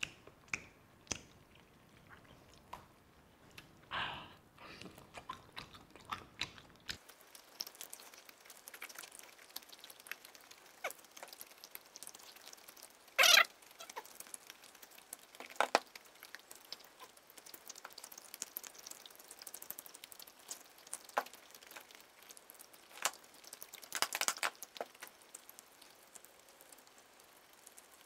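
Close-up eating sounds: a man chewing roast duck and pulling the meat apart by hand, with scattered short wet clicks and smacks. A louder one comes about halfway through and a cluster near the end.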